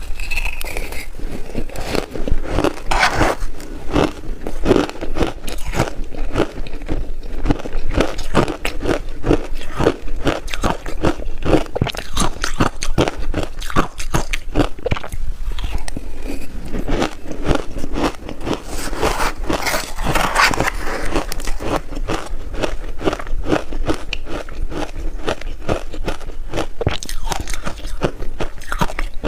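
Close-miked ice being bitten and chewed, a dense run of crunching and cracking without pause.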